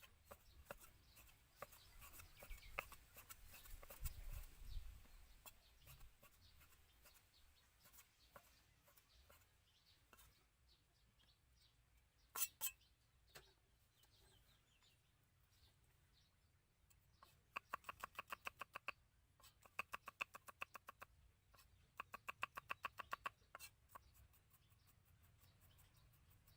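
Faint chicken clucking, with three bursts of rapid pulsed calls in the second half.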